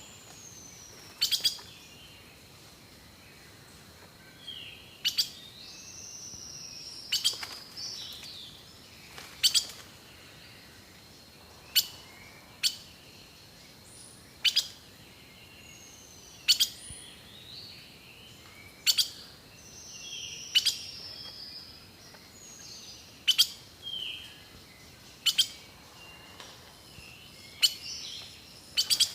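Birdsong: whistled notes sliding downward and short chirps, over a faint steady high tone. Sharp, loud click-like notes come about every two seconds and stand out above the singing.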